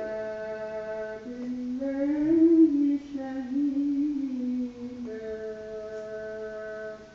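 A single voice chanting Quran recitation in a slow melodic style. It holds a long steady note, moves into a wavering run of notes about a second in, then holds another long note that stops near the end.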